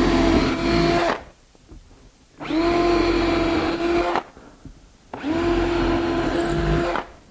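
Cordless drill boring screw holes through a wooden cabinet side panel: three runs of a steady whine, each about one and a half to two seconds long, rising in pitch as the motor spins up.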